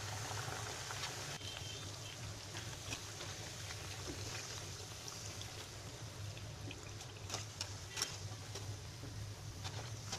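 Pooris deep-frying in hot oil: a steady sizzling and bubbling of the oil over a low hum. In the second half, a few sharp clicks of the wire-mesh skimmer against the pan.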